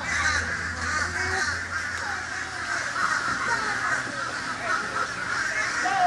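Many birds calling at once: short overlapping calls that rise and fall in pitch over a dense chatter.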